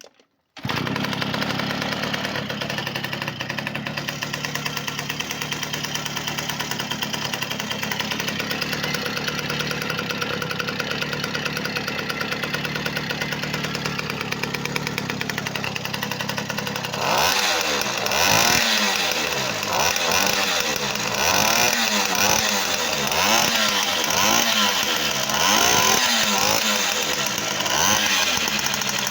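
Small two-stroke V50 engine, freshly rebuilt with a Honda Dio piston, catching about half a second in and idling steadily. From a little past halfway it is blipped up and down again and again, running cleanly.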